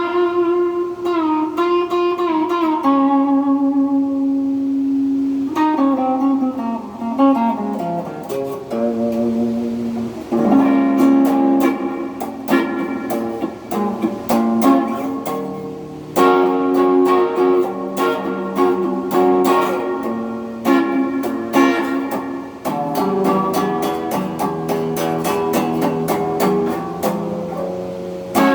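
Electric guitar played through an amp and a Donner effects pedal, with both pickups on together and out of phase. Single notes with bends and a slide down for the first ten seconds or so, then strummed chords.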